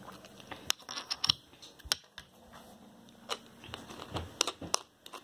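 Irregular sharp clicks and light knocks, about a dozen scattered over a few seconds, like small objects being handled.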